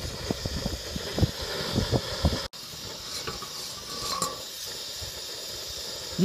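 Steady hiss of a gas-cylinder stove's burner under a clay pot, with some low knocks in the first half. The sound breaks off for an instant about two and a half seconds in, then the hiss carries on more quietly in the low end.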